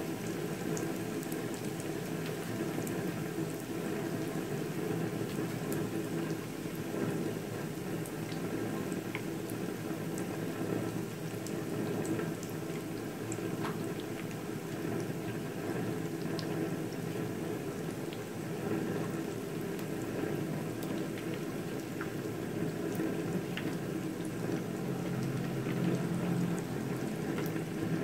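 Spring-roll-wrapped fermented cassava rolls deep-frying in hot oil in a pan: a steady bubbling sizzle with scattered small crackles.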